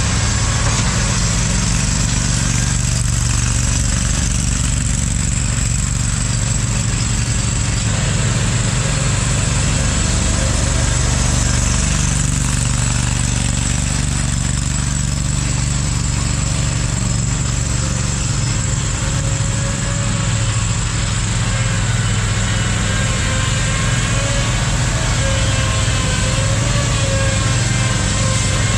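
An engine running steadily at a constant speed, with a low, even drone that does not change.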